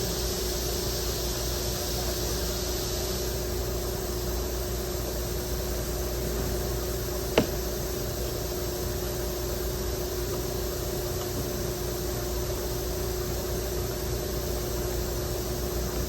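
Steady machine-like hum with a low rumble and hiss, and a single sharp click about seven seconds in.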